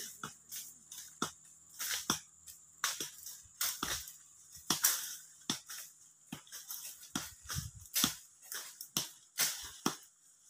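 Sharp irregular knocks, about two a second, of blades chopping roadside brush and grass.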